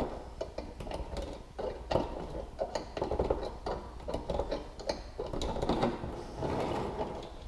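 Irregular small metallic clicks, taps and scrapes of hand tools and a screw-type puller working a chainsaw's crankcase halves apart, the case being eased open a little at a time around a sticking dowel pin.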